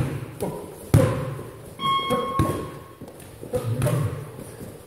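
Boxing gloves thudding as punches land during sparring: a few sharp thumps, the loudest about a second in, echoing in a large gym hall. A brief ringing tone sounds about two seconds in.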